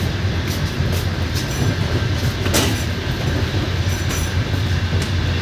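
Passenger train carriage running along the track, heard from inside: a steady low rumble with the clatter of wheels over rail joints. The sharpest clack comes about two and a half seconds in.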